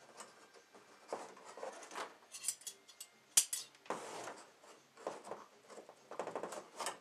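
Small nail scissors clicking and snipping at plastic packing straps on a cardboard box, with irregular scraping and rustling. A single sharp click about three and a half seconds in is the loudest sound.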